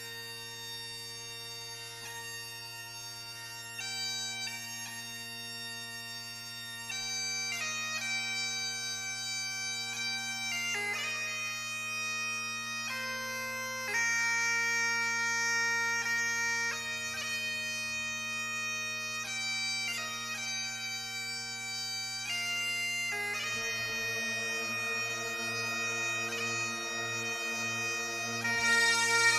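Bagpipe music: steady low drones under a slow melody of long held notes. About three quarters of the way through, the low drone breaks up and more notes join in.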